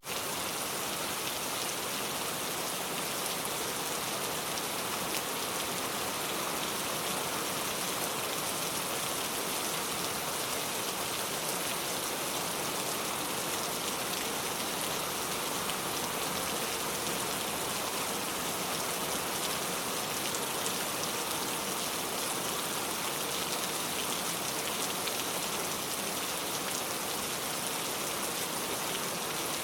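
Steady rain falling, an even hiss with fine patter of drops striking surfaces.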